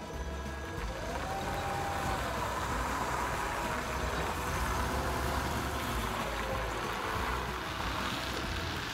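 Forklift engine running as the forklift drives across a gravel yard, its pitch rising and falling.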